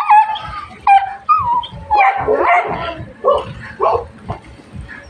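Stray dogs giving short, high-pitched yelping barks. There are several quick calls in the first second and a half, a denser run of overlapping calls about two seconds in, and two short barks near the fourth second.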